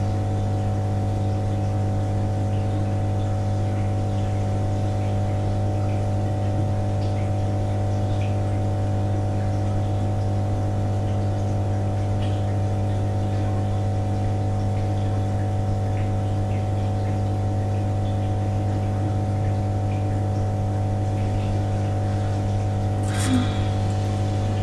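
Steady low machine hum of running equipment, unchanging throughout, with a few faint clicks and a brief rustle or scrape near the end.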